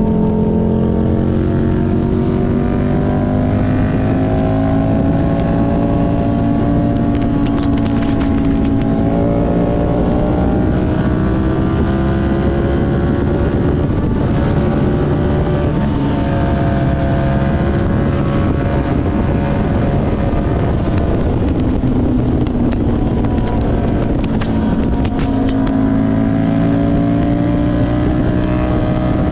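Buell 1125CR's V-twin engine running steadily under way, its pitch rising slowly and dropping back several times as the throttle and gears change, over a low wind rumble.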